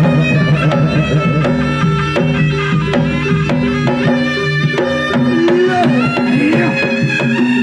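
Traditional Javanese jaranan music: kendang hand drums beating quickly under sustained, ringing pitched instruments, with a few gliding melodic notes.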